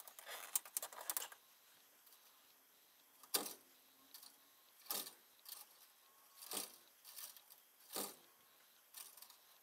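Faint handling clicks and rustles from wires and a plastic wire nut, then a series of single sharp taps or clicks about once a second.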